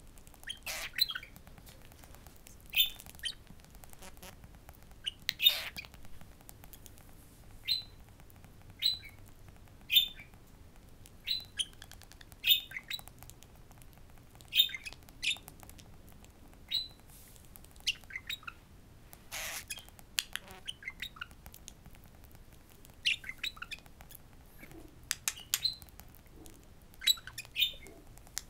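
Budgerigar giving short chirps and squawks, roughly one a second, some coming in quick clusters.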